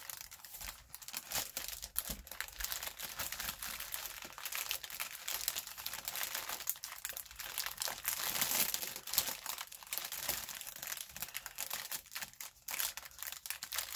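Clear plastic bag crinkling and rustling continuously as hands handle and sort the small packets of diamond-painting drills inside it, with many small crackles.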